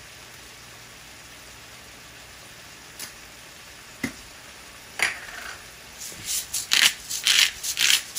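Salt being shaken over a frying pan of tofu and spinach: a few single clicks, then from about six seconds in a fast run of sharp, rattling shakes, three or four a second.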